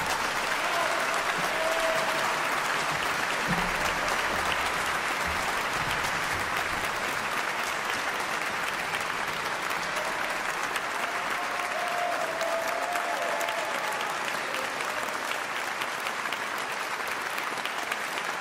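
Large audience applauding, a dense, even clapping that eases slightly toward the end.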